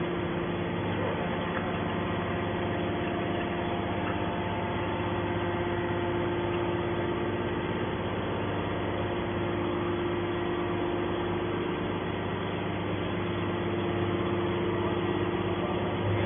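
Hydraulic metal wire baler's power unit running steadily: a constant machine hum with several fixed tones over a light hiss.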